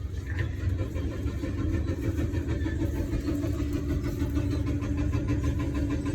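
Bus engine running, a steady low rumble heard from inside the bus, with a humming engine note that grows stronger about halfway through.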